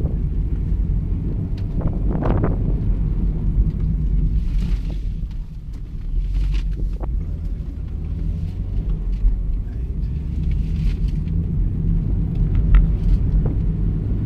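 Car engine and road rumble heard from inside the cabin while the car is driven on a test course, with a brief drop in level about halfway through and a few short clicks.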